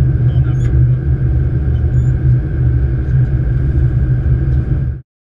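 Flight-deck noise of a Boeing 777-200ER on approach: a steady low rumble, which cuts off suddenly into silence about five seconds in.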